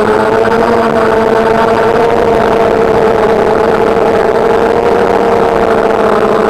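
DJI Phantom quadcopter's electric motors and propellers whining steadily in flight, heard from the onboard camera. The pitch drifts slightly up and back down partway through.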